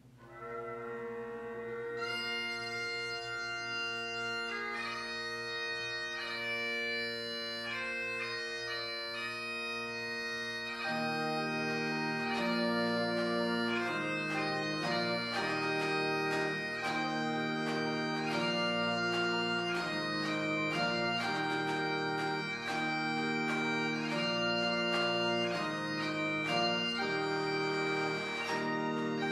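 Bagpipe starting a slow hymn tune: a steady drone tone sounds first, then the chanter melody begins about two seconds in over the drones. About eleven seconds in, lower sustained chords join beneath the pipes.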